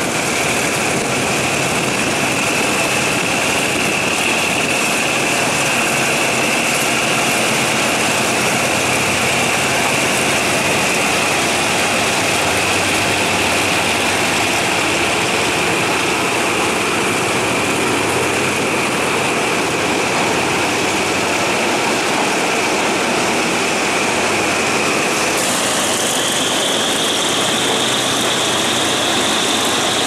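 Diesel locomotive No. 4016 running steadily as its passenger train moves off, a constant engine hum under a high whine that steps up in pitch about 25 seconds in.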